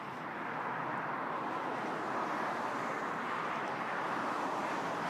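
Road traffic going by: a steady rush of vehicle noise that swells slightly over the first second and then holds.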